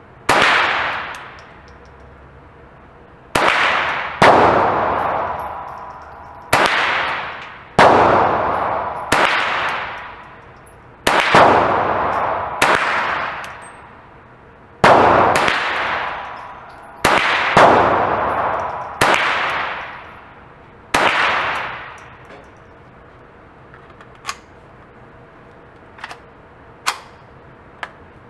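CBC 7022 / Mossberg 702 Plinkster semi-automatic .22 LR rifle firing about a dozen shots at an uneven pace, each sharp crack trailing off in a ringing echo. A few faint sharp clicks follow near the end.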